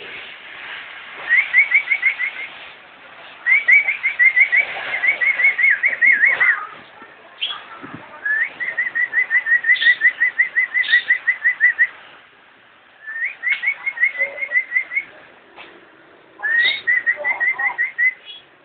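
Lovebird calling in runs of rapid, evenly repeated chirps, about six a second, each run lasting a few seconds with short pauses between; five runs in all.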